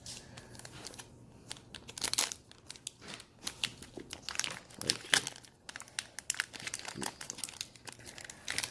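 Foil Pokémon trading card booster pack being torn open and crinkled, with irregular crackling and rustling of the wrapper.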